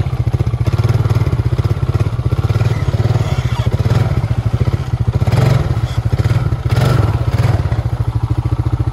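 Honda ATV's single-cylinder engine running as the quad climbs out of shallow floodwater, with two louder surges about halfway through.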